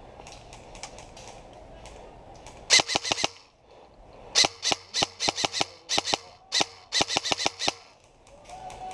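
Airsoft guns firing: sharp cracks in quick strings of several shots, starting a little under three seconds in and repeating through the second half, with faint scattered shots before.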